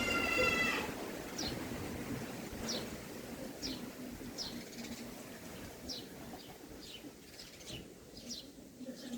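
Small birds chirping: short, high, downward-sliding chirps repeated about once a second, after a brief call with several pitch lines at the very start.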